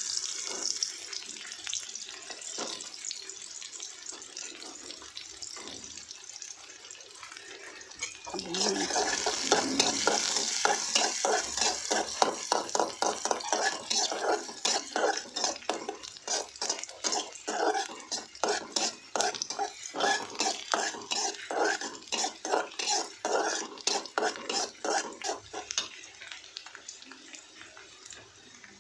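Chopped onion and tomato sizzling in hot oil in a metal kadhai. About eight seconds in the sizzle suddenly gets louder. A spatula then scrapes and stirs the pan in regular strokes, about three a second, which die away near the end.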